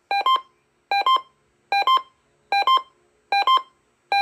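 Emergency Alert System receiver's electronic alert beeper sounding a repeating chirp pattern for a Required Weekly Test. Each chirp is a quick cluster of square-wave beeps alternating a lower and a higher pitch, repeated evenly about every 0.8 s, five times through.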